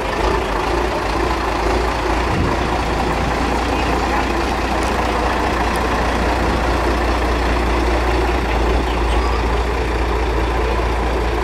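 Heavy truck diesel engine idling: a steady low rumble that does not change.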